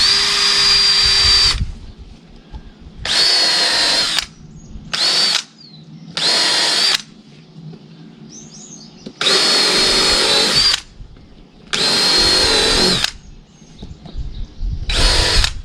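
Power drill run in seven short bursts, each a second or so long, with a steady high whine while it spins, drilling bolt holes to mount a truck mud flap.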